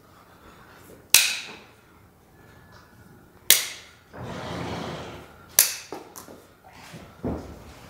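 Hoof nippers snapping through a horse's very hard hoof wall during a trim: three sharp cracks about two seconds apart, followed by a few smaller clicks near the end.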